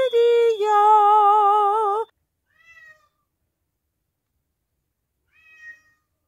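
A cat meowing: one long meow with a wavering pitch lasting about two seconds, then two short, much fainter meows, one just after it and one near the end.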